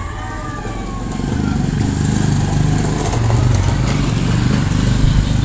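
An engine running steadily, growing louder about a second in and staying loud.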